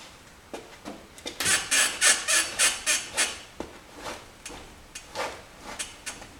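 A Mitsubishi's suspension ball joint on the straight control arm squeaking: a quick run of about eight loud squeaks, roughly four a second, starting about a second in, then scattered single creaks. The squeak comes from the ball joint itself.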